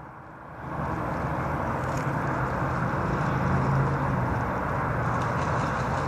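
Steady low rumble of distant urban traffic and industrial noise, with a low hum running through it; it dips briefly at the start, then holds steady.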